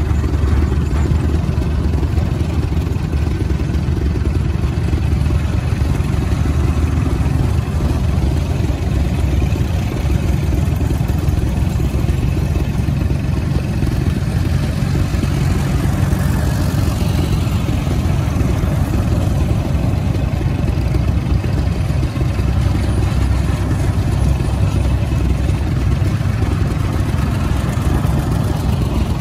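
Antique farm tractors, among them a Minneapolis-Moline, Farmalls and a John Deere, driving past in a line with their engines running at low speed: a steady, low-pitched engine rumble.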